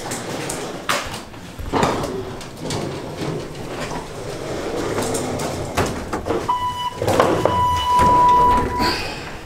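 Knocks, clicks and rustling of a handheld camera carried through a door. Near the end comes a short electronic beep, then a longer steady one lasting about a second and a half.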